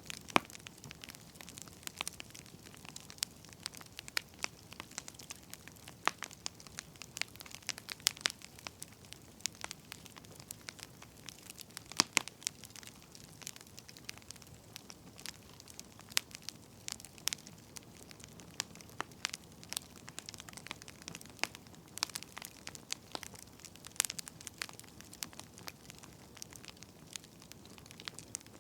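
Wood fire crackling: irregular sharp pops and snaps from burning firewood over a soft steady hiss, with a few louder pops, around twelve and twenty-two seconds in.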